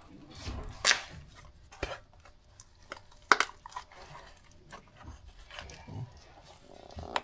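Metal hand tools clinking and knocking: a handful of sharp, separate hits spread a second or so apart, the loudest about a second in and again about three seconds in.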